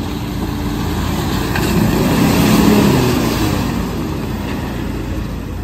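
Toyota Fortuner SUV driving past through mud and shallow water, its engine and tyres growing louder as it nears, loudest about two and a half seconds in, then fading.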